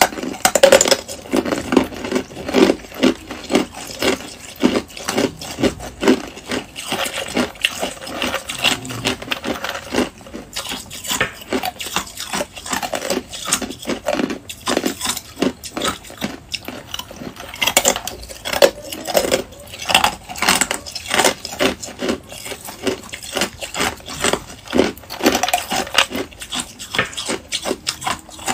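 Close-miked crunching of ice cubes being bitten and chewed: a dense run of sharp cracks and crunches, one after another, with a few louder bites.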